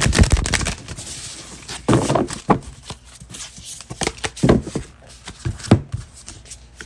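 A deck of oracle cards being shuffled and handled by hand: uneven bursts of card slaps and rustling.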